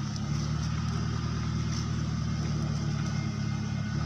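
Crane truck's engine running steadily at a constant speed.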